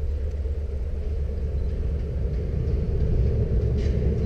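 Low steady rumble of an approaching Baldwin RS12 diesel locomotive, growing slightly louder toward the end.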